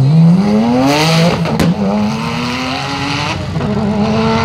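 Sports car launching from the start line and accelerating hard away: engine revs climb steeply, drop at an upshift about one and a half seconds in with a sharp crack, then climb again through a second upshift a little past three seconds.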